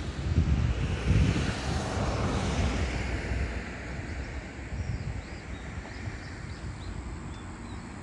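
Wind buffeting the microphone in gusts, while the rushing noise of a distant passing vehicle swells and fades over the first few seconds.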